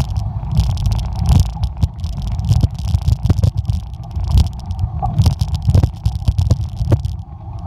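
Mountain bike rolling fast down a rough dirt trail: a constant low rumble of wind and jolting on the microphone, with frequent irregular rattles and clacks as the bike bounces over the bumps.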